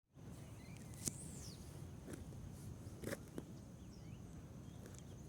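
Quiet outdoor ambience: a couple of high, quickly falling bird chirps and a few sharp clicks over a steady low rumble.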